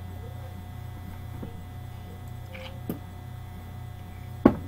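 Steady low electrical mains hum picked up by the recording, with a faint click about three seconds in and a single loud thump near the end.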